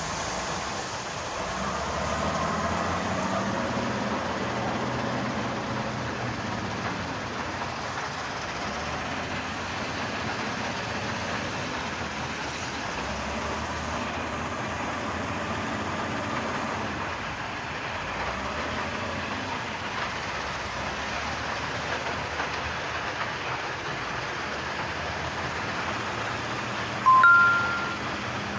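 Heavy construction machinery engines running, their note swelling and easing as they work. Near the end, a short, loud two-note horn blast.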